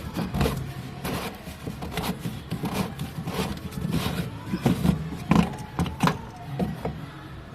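Irregular clinks, knocks and scrapes of hand tools and parts being handled, over a steady low hum.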